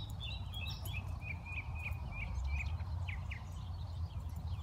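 Small birds chirping in a quick run of short, high notes, about three or four a second, then a few scattered downward-sliding calls, over a steady low rumble of wind on the microphone.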